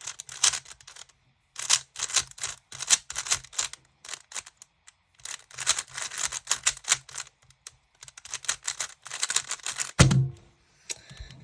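GAN maglev 3x3 speedcube being turned fast during a timed solve: rapid bursts of clicking layer turns broken by short pauses. A single loud thump about ten seconds in ends it.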